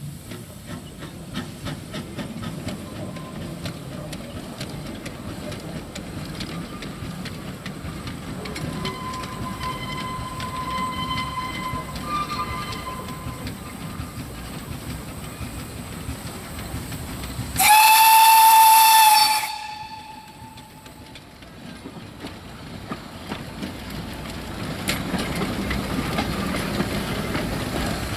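Narrow-gauge steam locomotive Wee Georgie Wood working along the track with a steady hiss of steam. About two-thirds of the way through, it gives one loud blast on its steam whistle, lasting about two seconds, that rises slightly in pitch as it sounds.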